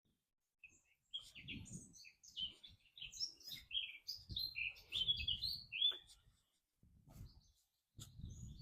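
A blackcap singing close overhead: a fast, varied warbling phrase lasting about five seconds, then a shorter burst near the end, with intermittent low rumbling on the microphone.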